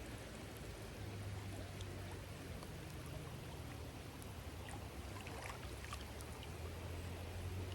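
Faint, steady wash of water with scattered light ticks.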